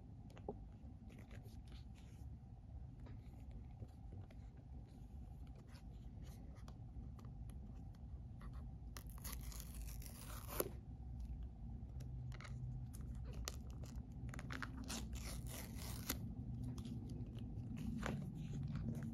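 Paper tear-off seal on an iPhone box being pulled off: a ripping sound lasting over a second about halfway through, then a second run of shorter rips a few seconds later. Between them come faint scrapes and taps of fingers on the cardboard box.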